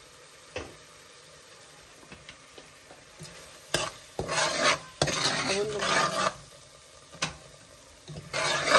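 Metal spoon stirring ground spices into frying onions in an aluminium pot, scraping against the pot, the mix sizzling. A single light tap comes about half a second in; the stirring starts about four seconds in, pauses after about six seconds and picks up again near the end.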